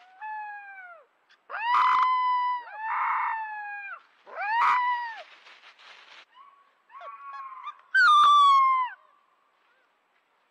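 Wolf pup howling: a series of about six short, high howls, each sliding down in pitch at its end, with the loudest near the end.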